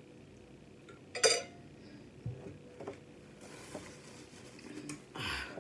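A sharp clunk about a second in, as an insulated metal water bottle is set down on a table, then a few light clinks and the soft rustle of a paper napkin.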